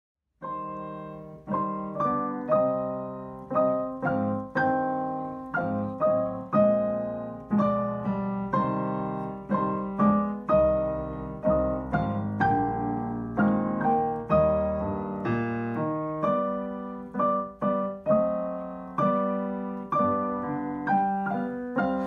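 Digital piano played as a four-hand duet: slow, evenly paced notes and chords, each struck and left to ring and fade.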